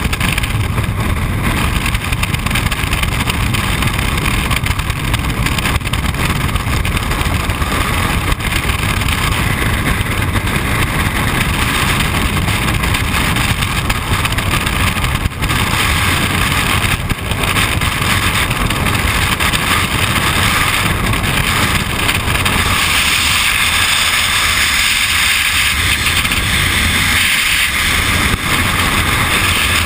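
Loud, steady rush of freefall wind buffeting a skydiver's camera microphone. It turns hissier about three-quarters of the way through.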